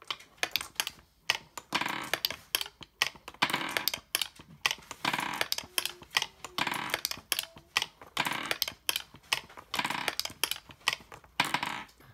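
Marbles clattering through a wooden KiwiCo marble timer: a rotating wooden wheel releases one marble at a time from the queue, and each one rattles and clicks down the wooden ramps, a burst of clicks about every second and a half.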